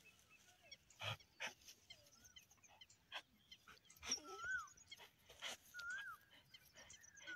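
A dog whimpering in short, high rise-and-fall whines, three times about a second and a half apart in the second half, with soft rustles and scratches in the grass as she squirms about.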